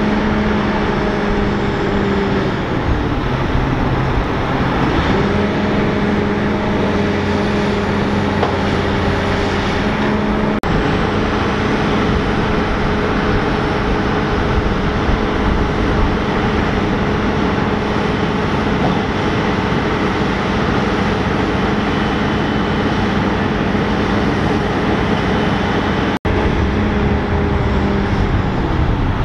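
Heavy diesel machinery running with a steady droning hum. Its pitch drops and comes back up about three to five seconds in, as if the engine eases off and then takes load again.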